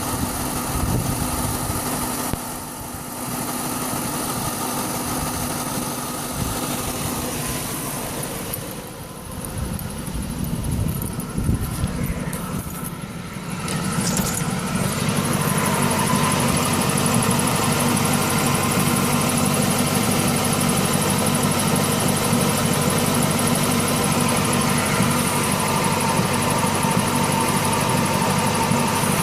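1999 Ford Mustang GT's 4.6-litre V8 running, with a tapping and a squeal that follow engine speed; the owner first took the tapping for a lifter. The sound is uneven at first, then steadier and louder from about halfway, with a thin high whine over it.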